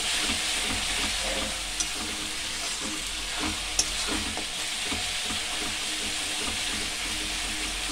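Spice paste sizzling in oil in a metal kadai, the ground masala being fried (kasha) with powdered spices while a metal spatula stirs and scrapes through it. Two sharp clicks of the spatula against the pan, about two and four seconds in.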